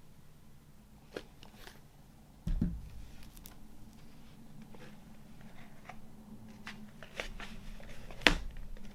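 Hands handling vinyl record packaging: scattered light clicks, taps and rustles of card and plastic, with a dull thump about two and a half seconds in and a sharp click near the end.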